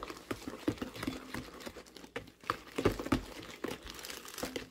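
Metal fork stirring flour into a wet dough mixture in a plastic bowl: irregular scrapes, taps and knocks against the bowl.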